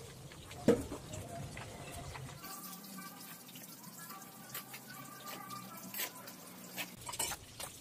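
Dry cement powder poured onto a heap of sand, with a trickling hiss and scattered light ticks of falling grains, and one sharp knock about a second in.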